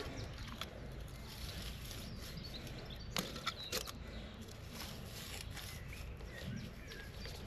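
Quiet garden ambience: a steady low rumble of wind on the microphone, with a few soft knocks about three seconds in.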